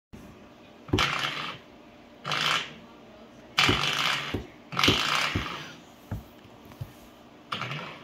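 Coiled-spring door stop on a baseboard being flicked by hand, giving five short buzzing twangs that each die away in about half a second. Soft thumps fall between them, about four in the middle.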